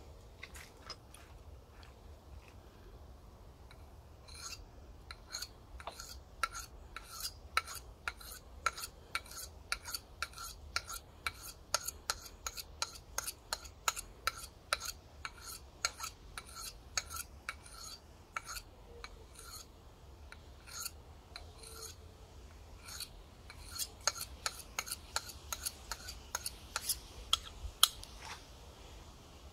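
Knife blade honed on a steel sharpening rod in quick alternating strokes, each a short metallic scrape with a slight ring. The strokes start about four seconds in, come about two a second, and slow down briefly in the middle.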